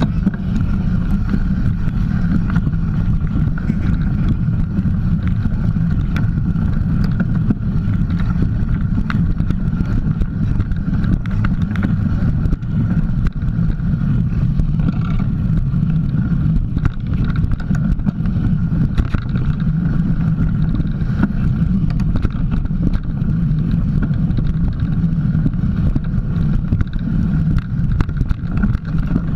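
Ride noise of a mountain bike on a dirt trail, picked up by a camera mounted on the bike: a steady low rumble from the tyres and frame, with many small knocks and rattles over the ground.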